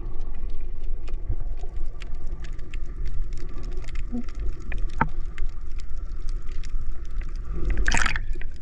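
Sea water heard through an underwater camera: a steady low rumble with a faint steady hum and many faint clicks, then a loud watery rush near the end.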